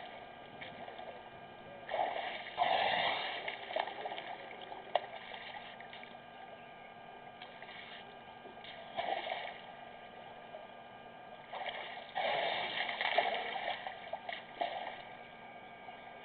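Elephant bull drinking: water splashing in three bursts, each lasting one to three seconds, over a faint steady hum.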